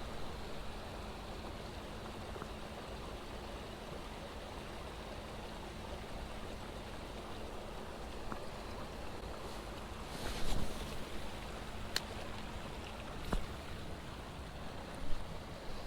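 Creek water flowing steadily. In the second half there are a few short, sharp clicks or knocks.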